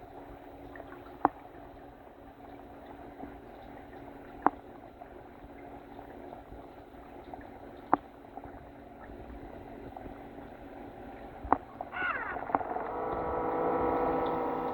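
Muffled underwater noise with a sharp click every three to four seconds. About twelve seconds in, a whine made of several steady tones swells up and grows louder toward the end: the toy remote-control submarine's small electric propeller motors running close by.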